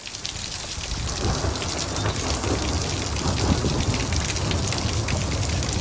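Heavy rain pattering steadily, with a low rumble underneath, swelling up over the first second.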